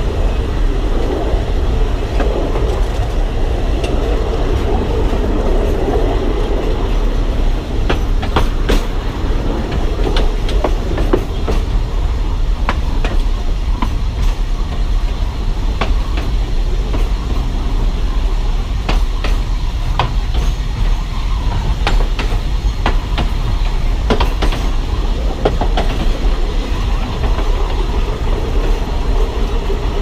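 Narrow-gauge Alishan Forest Railway train running behind a DL-41 diesel locomotive: a steady low rumble, with irregular clicks and knocks of the wheels over the rail joints that come more often from about eight seconds in.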